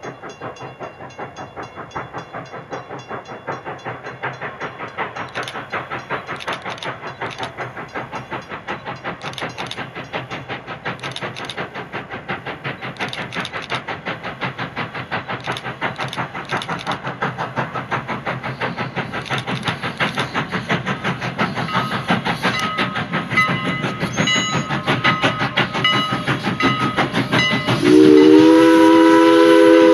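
Canadian National 89, a 2-6-0 steam locomotive, working hard under load with a fast, even exhaust chuff that grows steadily louder as it approaches. Near the end the steam whistle opens up in a long blast of several tones sounding together.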